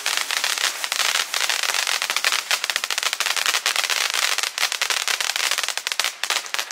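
A 200-gram firework fountain burning, with a steady hiss of spraying sparks and dense rapid crackling pops throughout, starting to fade at the very end as it burns out.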